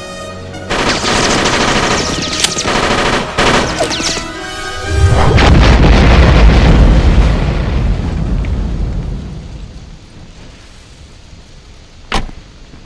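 Rapid gunfire over an action film score, then an explosion about five seconds in: a huge deep boom whose rumble dies away over several seconds. One sharp crack near the end.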